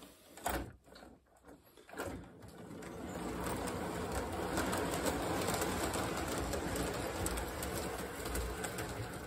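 A few light clicks of toy train cars being coupled, then from about two and a half seconds in the steady rumble and clatter of an O gauge toy train of tank cars running on three-rail tubular track.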